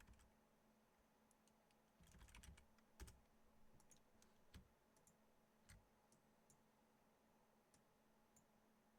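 Faint computer keyboard typing and clicks: a short run of keystrokes about two seconds in, then scattered single clicks over a low, steady room hum.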